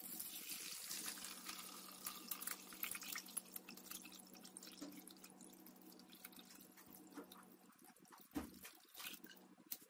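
Homemade apple vinegar pouring from a glass jar onto a cloth straining bag, a faint splashing trickle that starts at once and is strongest for the first few seconds, then thins into scattered drips as the pour slows.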